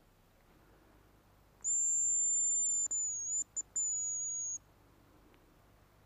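Hazel grouse decoy whistle (manok) blown in one long, high, thin whistle of about three seconds. It dips slightly and breaks briefly twice near its end, in imitation of a hazel grouse's call.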